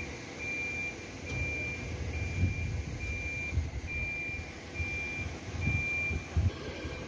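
Truck reversing alarm beeping steadily, a single high tone repeating a little more than once a second, over a low, uneven rumble.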